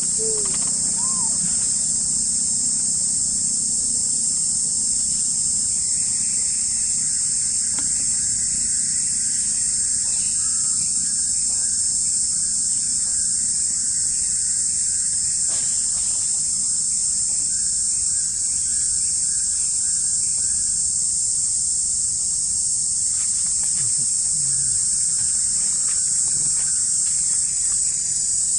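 Loud, steady, unbroken insect chorus with a high, shrill pitch. A few faint chirping calls come and go underneath.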